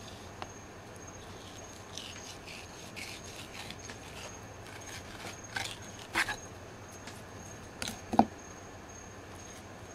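Scattered rubbing, scraping and clicking noises over a faint steady high-pitched tone, with a sharp knock about eight seconds in.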